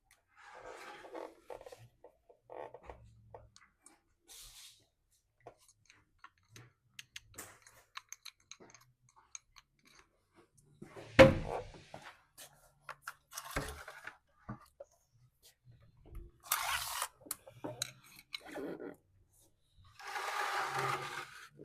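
Tools and machine parts being handled during a washing machine drain pump repair: scattered clicks and light knocks, one loud knock about halfway through, and two short scraping rushes near the end.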